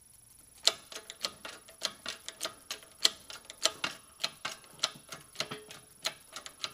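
A keyway broach being pushed through a pulley's bore by a shop press on its second, shimmed pass, cutting toward a quarter-inch keyway. It starts under a second in as a run of sharp, irregular clicks, a few a second, as the teeth cut.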